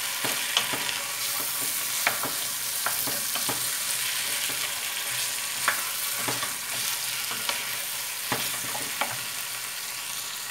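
Chicken drumsticks and tomato paste sizzling in a stainless steel pot, with a steady hiss. A wooden spoon stirring them clicks against the pot about once a second.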